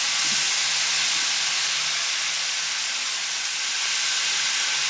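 Water hitting hot oil in a frying pan with chilli powder, garlic and curry leaves, hissing and sizzling loudly and steadily.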